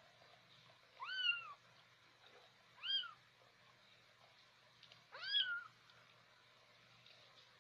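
Young kittens mewing while suckling at a dog's belly: three short, high-pitched meows a second or two apart, each rising and then falling in pitch.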